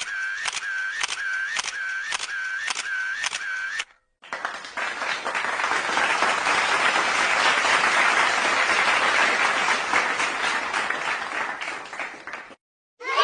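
Two stock comedy sound effects, one after the other. First a click with a short wavering tone, repeating about twice a second for about four seconds. Then, after a brief gap, about eight seconds of dense clapping like applause that swells and fades.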